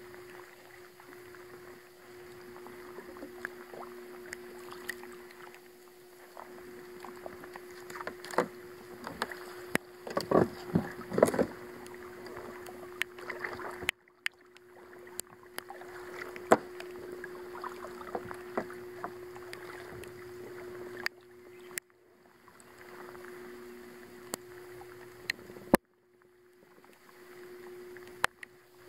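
Handling and paddling noises aboard a small plastic kayak: scattered knocks, clicks and water sounds over a steady hum, with a louder flurry of knocks about ten to twelve seconds in. The sound cuts off abruptly several times.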